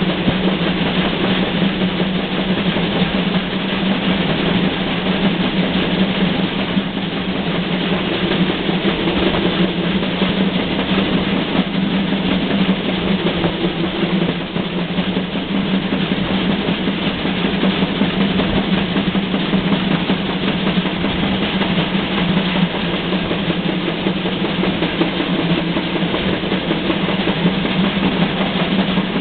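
Steam train running, a continuous noisy rumble over a steady low drone.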